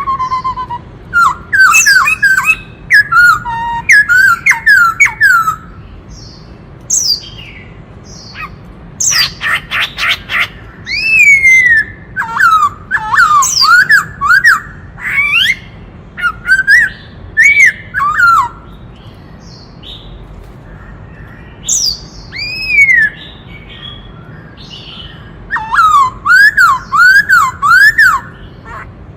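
Black-throated laughingthrush singing: loud bouts of quick, slurred whistled notes with a short harsh call about nine seconds in, and pauses of a few seconds between bouts.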